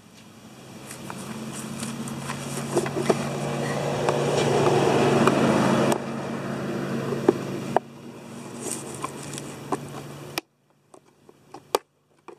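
A motor vehicle's engine hum that grows louder to a peak about five seconds in, then drops away in abrupt steps. Sharp clicks from a screwdriver prying at a plastic bait station come over it in the second half.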